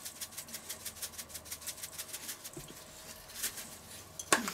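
Salt shaker being shaken over a stainless steel bowl of cubed meat, the salt rattling out in a quick even rhythm of about seven shakes a second that stops about three seconds in; a couple of louder knocks follow near the end.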